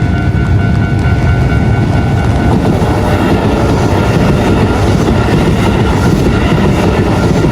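Keisei electric train passing over a level crossing: a loud, steady rumble of wheels on rails that thickens about three seconds in, with the crossing's warning bell ringing steadily underneath.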